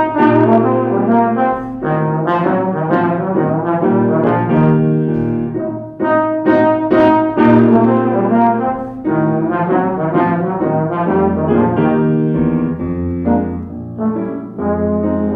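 Tenor trombone with a valve attachment playing a jazzy melody of sustained notes, accompanied by piano. Low bass notes join about two-thirds of the way in.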